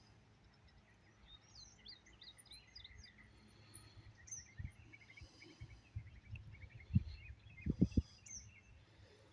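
Small birds chirping and twittering outdoors in short high calls, with a few dull low thumps about halfway through and again near the end.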